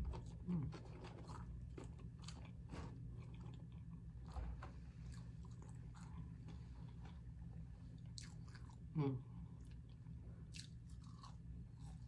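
Close-miked chewing of a McDonald's Filet-O-Fish sandwich: irregular wet mouth clicks and smacks, with a short low hum of the voice about nine seconds in.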